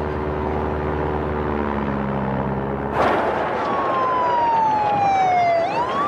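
A steady low engine drone, then about halfway through a siren starts wailing, its pitch sliding slowly down and then sweeping back up near the end.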